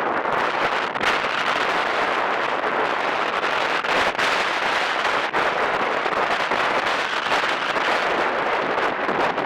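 Strong wind buffeting the microphone: a steady rushing noise with a few sharp crackling hits, about a second in and again around four and five seconds.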